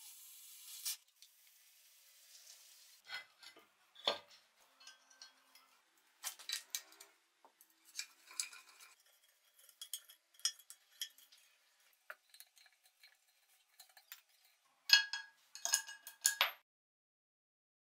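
A gas torch flame hisses for about a second as it heats a rusted nut on a leg vise jaw, then come scattered metal clinks and scrapes of an adjustable wrench turning the freed nut. Near the end, several sharp hammer strikes on the steel vise.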